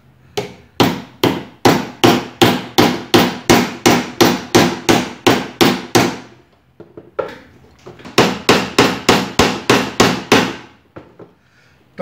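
Hammer blows on a screwdriver bit resting on the nut of a blender motor shaft, driving the shaft back down into its seat: a steady run of sharp strikes, about three a second, for some six seconds, a short pause, then about seven more.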